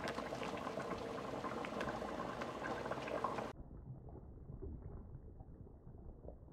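Spinach purée bubbling and crackling in a frying pan with many small pops as it is stirred with a silicone spatula. About halfway through the sound drops suddenly to a fainter, duller bubbling while milk is poured into the pan.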